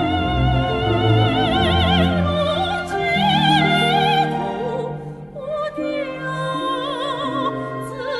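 Operatic singing with strong vibrato over an orchestral accompaniment, with a brief soft dip about five seconds in.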